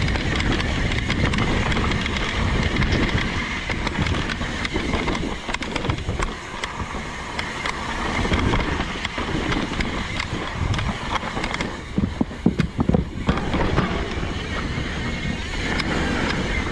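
Evil Insurgent MX mountain bike riding downhill: wind on the microphone and tyres on dirt, with the chain and frame rattling over bumps and a run of sharp knocks about twelve seconds in.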